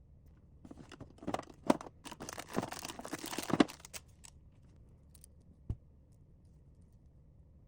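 Packaging being handled and torn open by hand: a few seconds of crinkling and tearing from about a second in, followed by a single click about two seconds later.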